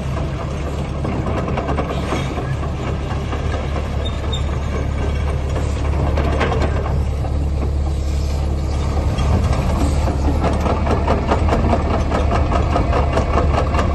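XCMG XE60GA excavator's Yanmar 4TNV94L four-cylinder diesel running steadily, with a fast mechanical clatter over the engine note. The clatter grows a little louder about halfway through.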